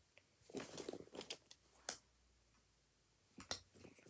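Faint rustling of small objects being handled, with a sharp click about two seconds in and another near the end.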